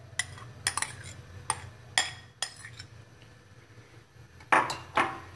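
Spoon and hand knocking against a plastic food-processor bowl as soaked bread is put in: a run of sharp clicks and taps in the first couple of seconds, then two louder, longer scraping sounds about four and a half seconds in.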